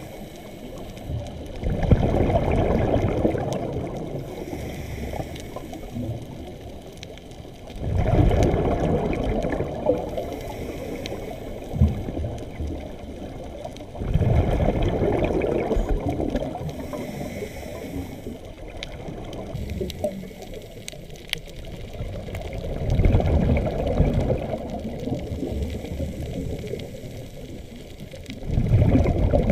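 Scuba diver breathing through a regulator underwater, heard through the camera's housing. Each breath is a short hiss on the inhale, then a louder rush of exhaust bubbles. There are five breaths, about six to nine seconds apart.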